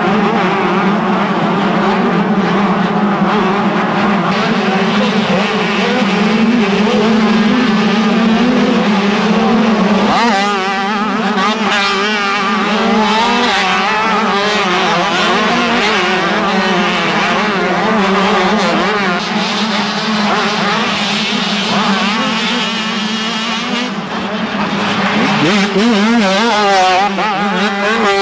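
Several motocross motorcycle engines running hard together, a dense steady drone for about ten seconds, then bike engines revving up and down repeatedly through the corners.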